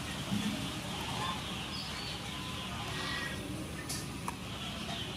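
Quiet outdoor rural background with faint, distant bird chirps and a couple of light clicks about four seconds in.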